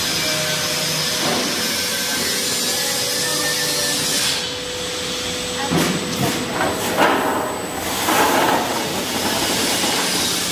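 Stainless electromagnetic drum roaster running with a steady hiss and faint hum. About four seconds in the hiss drops, and from about six seconds roasted salted cashews clatter against the turning steel drum as the batch is discharged and pours out onto the steel mesh cooling tray.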